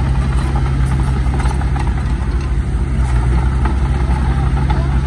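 Heavy diesel engine of earthmoving machinery running steadily at a low, even pitch.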